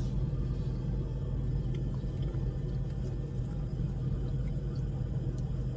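Steady low rumble of a motor vehicle, with a few faint clicks on top.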